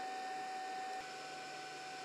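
Hitachi UC18YRSL battery charger's cooling fan running while it charges an 18 V Li-ion battery: a steady airy hum with a constant whine. About a second in there is a faint click, and the whine shifts slightly in pitch and gets a little quieter.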